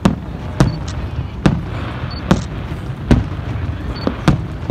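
Aerial firework shells bursting: about six sharp bangs at irregular intervals over a low rumble.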